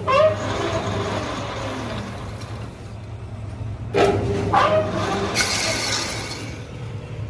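Manual lathe running with a steady low hum, and two squeals that fall in pitch, about four seconds apart, as the cutting tool works the metal during thread cutting.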